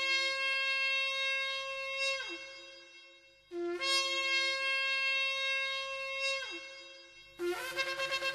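Shofar blown in long blasts. Each note starts low, jumps up to a held tone, then bends down and fades: one ends about two seconds in, a second runs from about 3.5 to 6.5 seconds. A third blast starts near the end with a rapid wavering.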